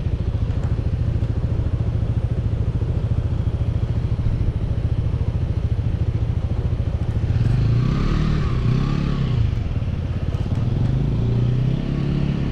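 Motorcycle engine running steadily, its pitch rising and falling around the middle and again near the end as the engine speed changes.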